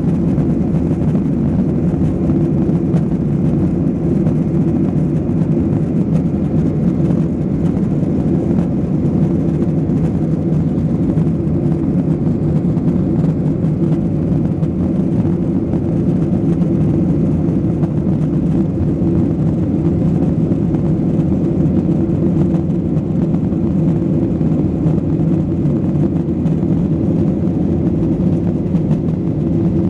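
Jet airliner during takeoff: a steady, loud, low roar of engines and airflow that holds even throughout.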